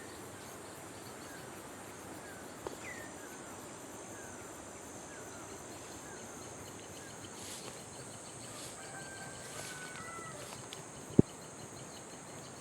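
Rural outdoor ambience of insects and birds: a steady high insect buzz, a run of short falling chirps through the first half, and one sharp click about eleven seconds in.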